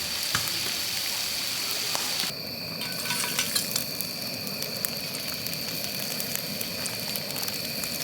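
Food sizzling on a hot grill pan, a steady frying hiss with scattered light clicks, its sound changing abruptly about two seconds in. A faint steady high tone sits behind it.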